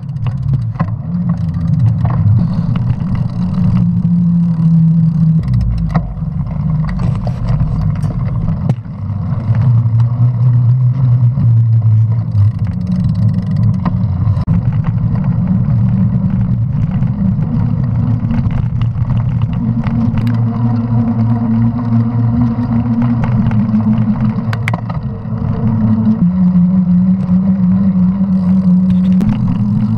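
Mountain bike rolling on pavement, heard from a camera on the handlebars: a steady low tyre drone that shifts in pitch now and then, with wind noise and short knocks and rattles from bumps.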